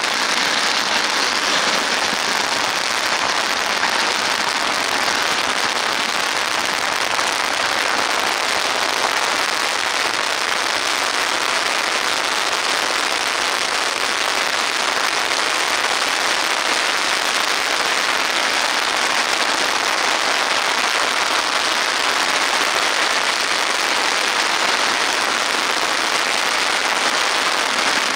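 Strings of firecrackers going off in a dense, unbroken crackle at a steady, loud level.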